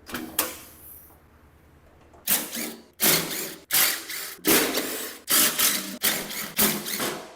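Power tool run in short bursts, backing out the 10 mm bolts that hold a front panel: one burst about two seconds in, then a string of roughly half-second bursts one after another.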